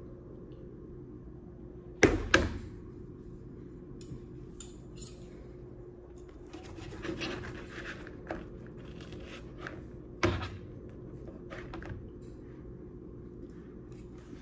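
Metal knife and fork clattering against a ceramic plate, with two sharp clacks close together about two seconds in and another near the ten-second mark, and a stretch of knife sawing through crispy French toast in the middle. A steady low hum runs underneath.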